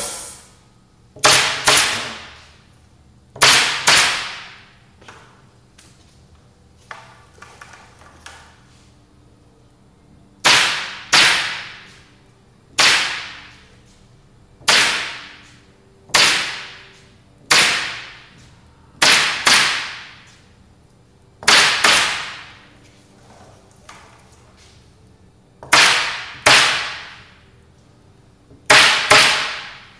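Pneumatic upholstery stapler firing staples one at a time into the table's wooden frame, each sharp snap followed by a short fading tail. The shots come one to two seconds apart, with a pause of about six seconds after the first four.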